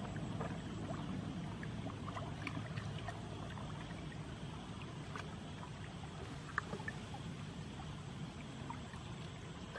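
Shallow muddy water sloshing and lapping around people wading and feeling along the bottom for fish by hand, with small scattered splashes and drips.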